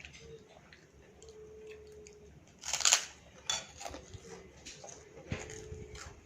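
Eating sounds: light clicks of a spoon on a plate and chewing, with one louder short noise about three seconds in.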